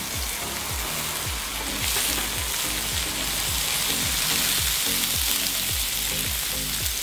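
Meat, sausages and shrimp sizzling steadily on a hot aluminium grill plate over a portable gas stove, with background music's low, steady beat underneath.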